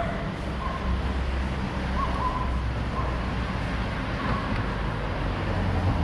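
City street traffic noise: a steady low rumble of passing vehicles, with a few short, hoot-like notes about a second apart over it.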